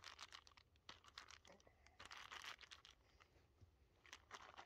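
Faint crinkling of a plastic bag with light scattered taps and crunches: nuts in the bag being broken up with a stick on a chopping board.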